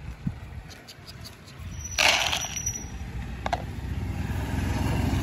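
Motor scooter engine starting about two seconds in with a short loud burst of noise, then running steadily at idle after a click.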